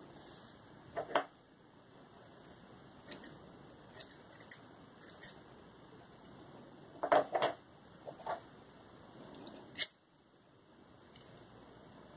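Small fly-tying scissors snipping the acrylic wool at the head of a streamer fly: a scattering of short, sharp clicks, the loudest pair about seven seconds in.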